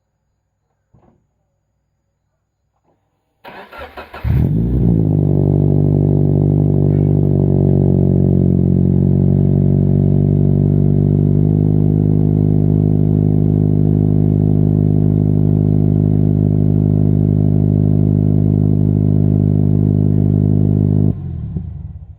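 Toyota 86 (ZN6) FA20 flat-four boxer engine cranked by the starter and catching about four seconds in, then running at a steady, loud cold-start idle through a straight-pipe BE FREE rear muffler with a silencer insert fitted. The idle note steps down slightly about halfway, and the engine is switched off near the end.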